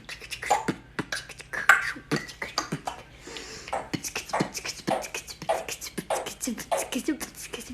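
A Congo African grey parrot beatboxing along with a person: rapid mouth clicks and pops mixed with short pitched vocal sounds, several a second.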